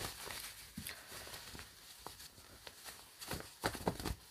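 Soft fabric rustling and scattered light scuffs as a small sewn fabric bag is turned right side out by hand, a little louder near the end.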